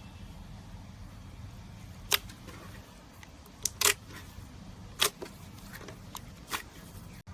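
Slime being pressed and poked by hand, giving a handful of sharp, irregular pops and crackles over a steady low hum.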